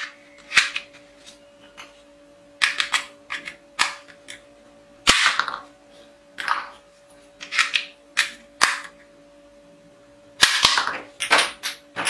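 Plastic ball-bullet toy pistol being handled, cocked and fired, giving clusters of sharp plastic clicks and snaps every second or two.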